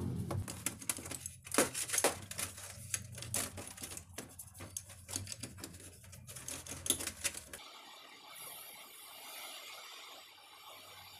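A toothbrush scrubbing the Makita 9553B angle grinder's bevel gear and gear housing in a metal tray, with quick scratchy strokes and clicks. About seven and a half seconds in, this gives way to the steady hiss of spray paint going onto the gear housing.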